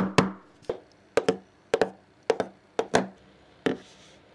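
Footsteps on a hard floor, an even walking pace of about two steps a second, each step a sharp tap, often doubled like heel then toe.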